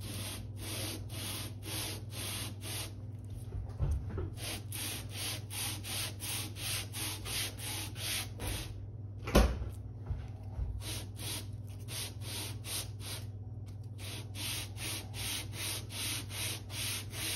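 An engine cylinder head's gasket face being hand-sanded on 400-grit sandpaper laid on glass, pushed back and forth in steady rubbing strokes, about three a second. This flat-sanding cleans the face and shows up any warped spots. A single sharp knock about nine seconds in, as the head is repositioned.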